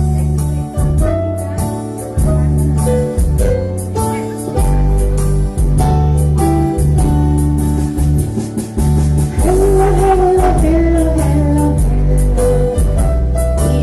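Electronic arranger keyboard playing a song's introduction: a steady bass and chord accompaniment, with a wavering melody line entering about nine seconds in.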